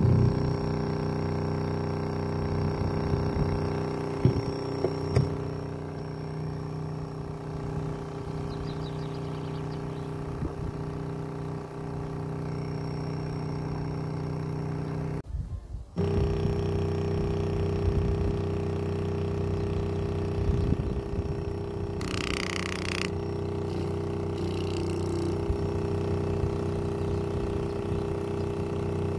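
The woofer of a JBL Xtreme 2 portable speaker, lifted out of its housing, playing a steady low test tone with a stack of overtones. It cuts out briefly about halfway through, and there is a short burst of hiss about two-thirds of the way in.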